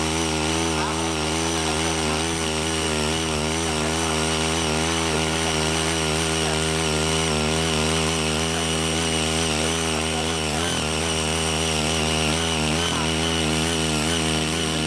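Ching Yee CY80 mini rotary tiller's small engine running steadily under load as its tines churn the soil, its pitch wavering slightly and dipping briefly twice in the last few seconds.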